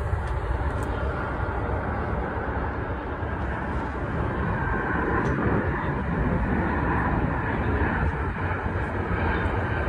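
Jet airliner passing low on final approach with its landing gear down: a steady engine rumble and rush that swells slightly past the middle.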